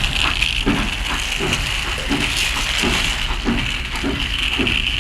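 Battery-powered toy Thomas the Tank Engine running along its plastic track: a steady high motor whine with regular clicking, about two to three clicks a second.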